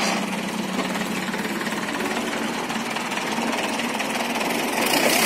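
Swaraj 717 mini tractor's single-cylinder diesel engine idling with a rapid, even diesel clatter, getting slightly louder near the end.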